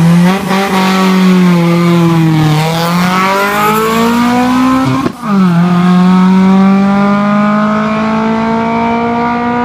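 Volkswagen hatchback race car launching from a hillclimb start line, its engine held at high revs, then pulling away hard. About five seconds in the engine note breaks and drops at an upshift, then climbs slowly again in the next gear as the car accelerates away.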